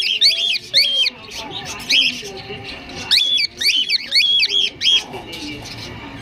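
Cockatiels calling: short, shrill, up-sweeping chirps repeated in quick clusters of two to four, with brief pauses between clusters.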